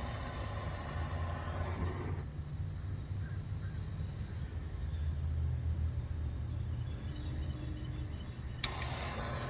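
Gas soldering torch burning with a steady rumbling hiss, with wind rumbling on the microphone. The hiss drops back about two seconds in and comes back with a sharp click near the end.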